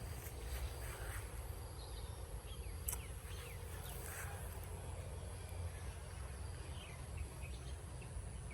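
Rural outdoor ambience: a steady high-pitched insect drone with short, scattered bird chirps, over a constant low rumble, and one brief click about three seconds in.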